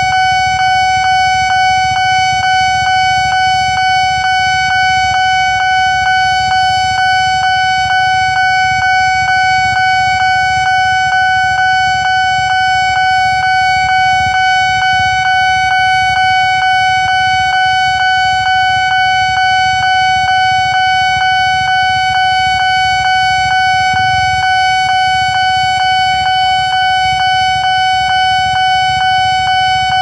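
Japanese-style electronic level-crossing alarm sounding a loud, steady, repeating high tone, the warning that a train is approaching and the barriers are down. A low rumble runs beneath it.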